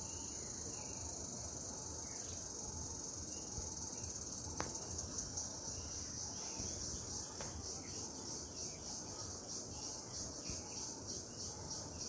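Chorus of insects, a steady high-pitched buzz that from about five seconds in pulses two to three times a second.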